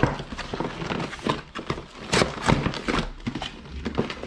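Cardboard box and packaging being handled and opened: irregular knocks, taps and rustling.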